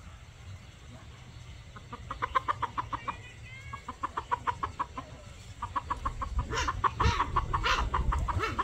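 Village chickens clucking in rapid runs of short clucks, about eight a second, in three bouts starting about two seconds in, the last bout the loudest.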